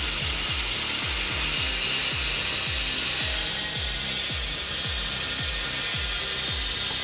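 Power saw cutting through wood, a steady rasping hiss, over background music with a steady low beat.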